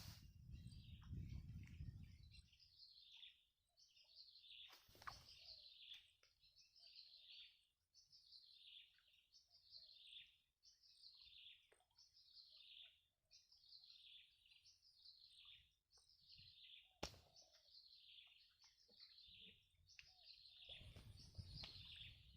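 Faint bird calling over and over, a high note falling in pitch repeated about once a second. A low rumble in the first two seconds, and a couple of sharp clicks.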